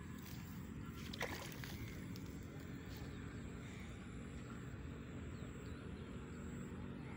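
Faint steady outdoor ambience by the river, mostly a low rumble, with one short click about a second in.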